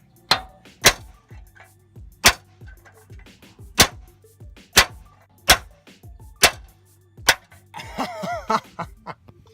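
Hammer blows on a rusted steel bolt on a truck frame, trying to drive it out: about eight sharp strikes at uneven spacing, then a short shout near the end, with background music.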